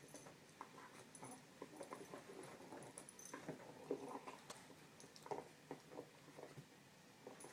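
Dogs stirring close by: faint, irregular small rustles and taps, with perhaps a soft dog whimper.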